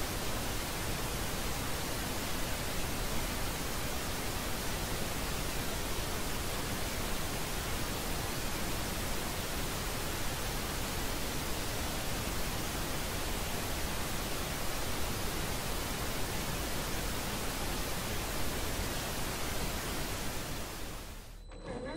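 A steady, rushing hiss like static, with no pitch or rhythm, that cuts off abruptly near the end.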